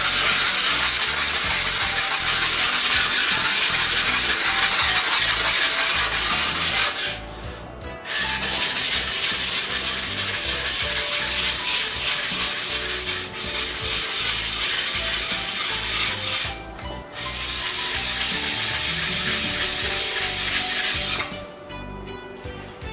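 A 150-grit diamond plate rubbed back and forth over a 400-grit Naniwa Chosera water stone to flatten its surface, a continuous gritty scraping. It breaks off briefly twice, about seven and about sixteen and a half seconds in, and stops shortly before the end.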